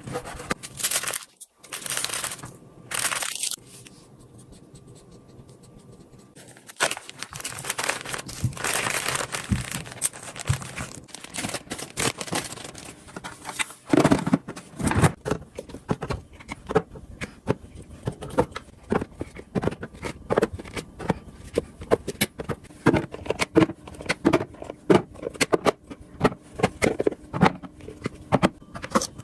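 Kitchen items being handled: a few bursts of rustling and crinkling, like plastic packaging, in the first half, then many quick light clicks and knocks.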